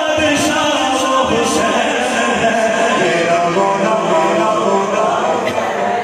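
A man's solo voice chanting a devotional Urdu Muharram kalaam in praise of Imam Hussain, sung in long melodic phrases.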